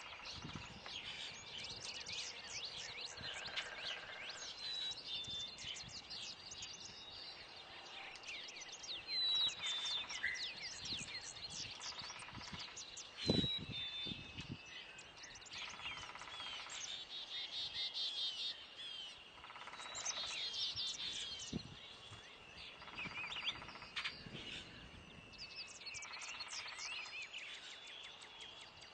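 Birds chirping and calling throughout, a dense mix of short quick chirps with a few whistled notes. A single dull thump stands out about thirteen seconds in.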